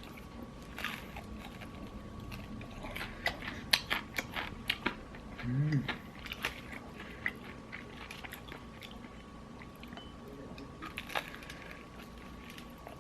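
Close-up crunching and chewing of crispy fried chicken, with crackling bites densest a few seconds in, then sparser. A short voiced murmur about halfway through.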